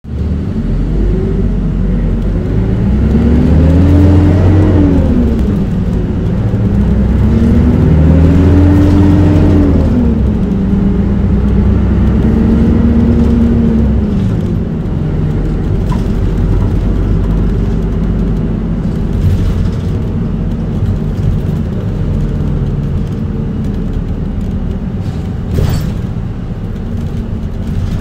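Route bus engine pulling away: its note rises, drops at an upshift about five seconds in, rises again through the next gear and drops at a second shift, then holds steady. Around fourteen seconds the throttle eases off and the engine runs lower and quieter, with a single sharp click near the end.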